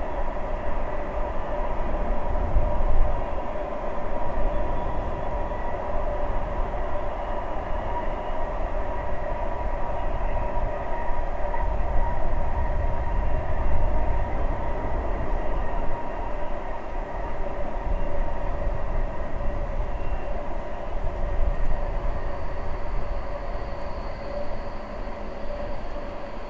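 LKAB IORE twin-section electric locomotive (Bombardier TRAXX) hauling a long train of iron-ore wagons past: a steady low rumble with a steady whine on top.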